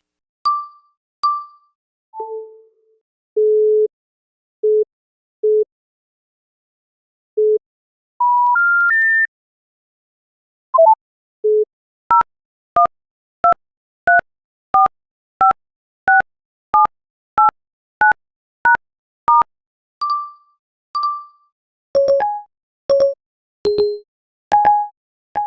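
A sequence of iPhone electronic phone tones: a few low steady beeps, three short tones stepping upward in pitch, then about a dozen evenly spaced two-pitch keypad beeps, followed by more short beeps at varying pitches.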